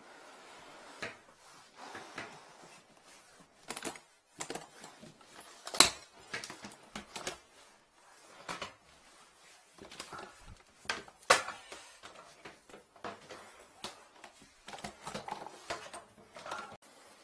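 Irregular clicks, knocks and rattles of metal tools and fittings being handled in an aluminium tool case, with two sharper knocks about six and eleven seconds in.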